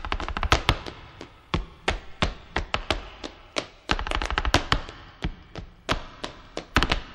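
A rapid, irregular run of sharp taps and knocks, several a second, starting abruptly out of silence.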